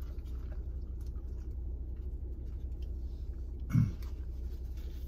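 A man chewing a mouthful of bagel sandwich, with one short closed-mouth "mm" falling in pitch about four seconds in, over a steady low hum in the car cabin.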